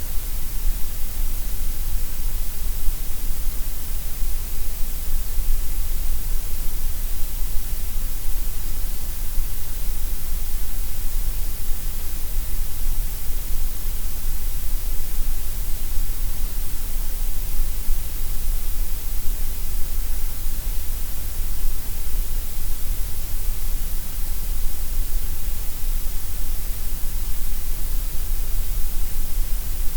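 Steady, unchanging white noise: an even hiss with a low rumble beneath it, with no variation or events.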